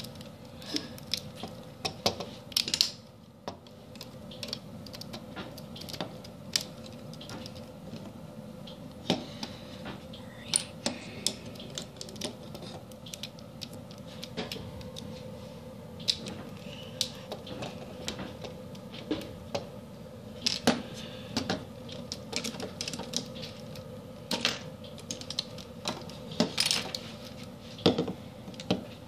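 Plastic Lego Technic beams, pins and plates being handled and pressed together, giving irregular sharp clicks and small knocks.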